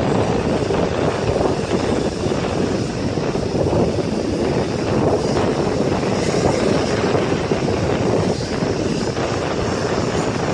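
Jet aircraft engines running, a steady rushing noise with no changes in pitch.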